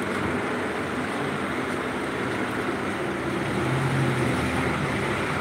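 Street traffic noise: a steady wash of vehicle engines, with one low engine hum swelling a little about four seconds in.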